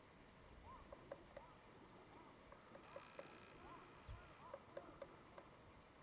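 Great spotted woodpecker pecking at a tree to get at food: faint, irregular single taps, a few a second, not a drumming roll.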